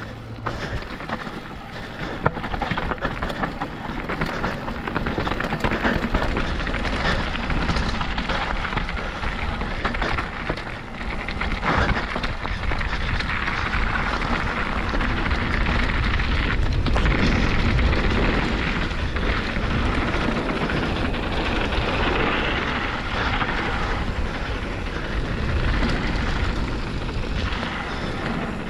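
Mountain bike descending a rough dirt trail at speed: a steady rush of wind on the microphone over tyres rolling and the bike rattling on the bumps, loudest about two-thirds of the way through.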